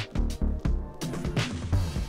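Upbeat background music with a steady drum beat and bass.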